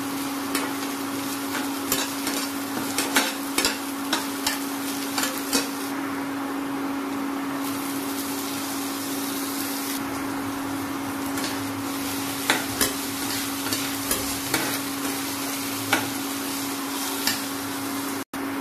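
Chopped onion and chillies frying in oil in a kadai, sizzling steadily, while a steel spatula stirs and scrapes the pan with irregular taps and clicks. A steady hum from the induction cooktop runs underneath.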